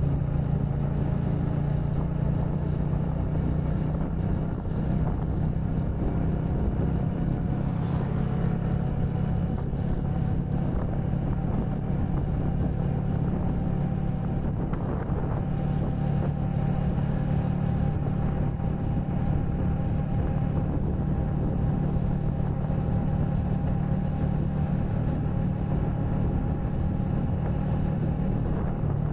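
Vehicle engine running steadily at an even speed with road noise, its low hum and a faint higher tone holding level throughout.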